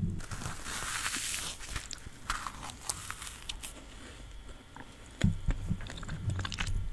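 Close-miked eating sounds of dry cotton candy: soft crunching and chewing with small clicks, a brief hissy rustle about a second in, and a few low thumps about five seconds in.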